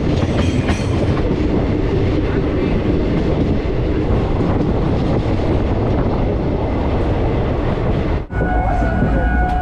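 Express passenger train running at speed, heard from an open carriage door: a loud, steady rumble of wheels on the rails. After a brief dip about eight seconds in, a steady high whine rides over the rumble.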